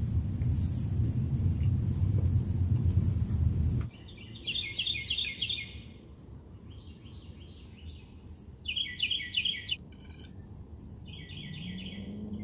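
A low rumbling noise for the first four seconds that cuts off abruptly, then a songbird singing three short phrases of quick, repeated high notes.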